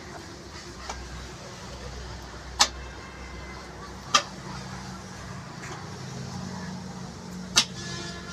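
A motor vehicle's engine running at a steady low idle, with three short, sharp clicks about a second and a half to three seconds apart.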